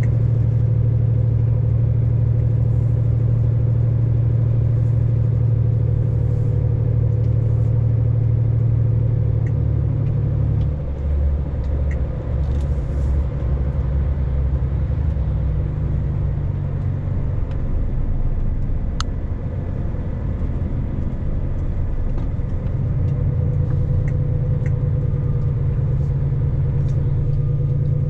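A vehicle engine droning steadily under way, heard from inside the cab, with road rumble. The engine note drops about 11 seconds in and climbs again near the end.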